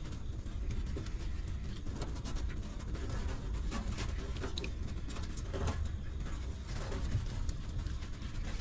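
Newborn puppies make soft whimpers, squeaks and grunts while they nurse from their mother. A steady low rumble runs underneath.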